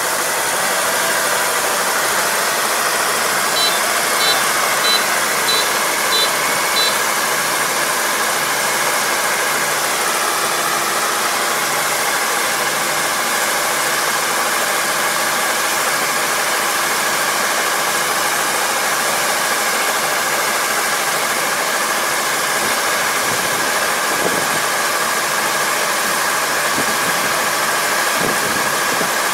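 Combine harvester running steadily, engine and threshing machinery making a constant loud noise. A short run of about six high beeps sounds between roughly 3.5 and 7 seconds in.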